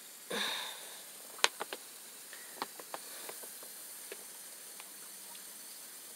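Hands handling a drip irrigation hose and a brick in garden soil: a short rustling scrape about half a second in, then a scatter of small clicks and taps, the sharpest about a second and a half in, fading out by about four seconds.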